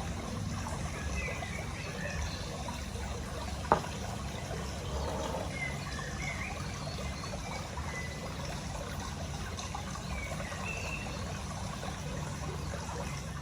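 Steady background noise, like a trickle of water, with faint short high chirps scattered through it and one sharp click about four seconds in.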